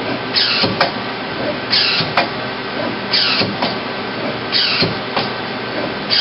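Mazak Multiplex 6200Y CNC lathe's tool turret indexing over and over, about once every second and a half: each cycle a short falling hiss followed by a click, over the machine's steady hum.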